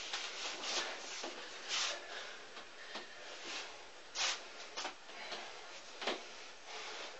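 Arms and sleeves brushing and slapping against each other in Wing Chun sticky-hands (chi sao) practice: soft rustling with a few short hissing bursts, the loudest about four seconds in.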